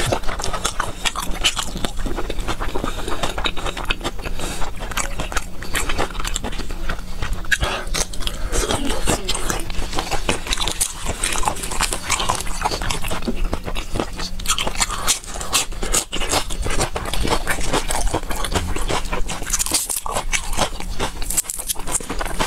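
Close-miked eating sounds: a person chewing spicy sauced shrimp and fresh greens, with continuous wet smacking and crackling clicks and some crunching bites.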